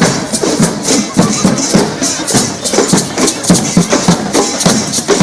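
Live hand percussion playing a steady fast beat, about four strokes a second, with shakers or rattles, over the voices of a crowd.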